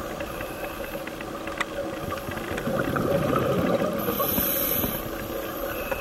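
Underwater ambience picked up by a diving camera: a steady rushing hiss of water and scuba divers' exhaled bubbles over a faint steady hum, with a single click about a second and a half in.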